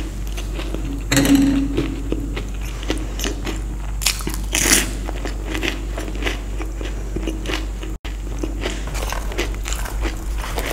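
A person eating crunchy Indian street food close to the microphone: crisp bites and chewing, with louder crunches about a second in and again about four and a half seconds in.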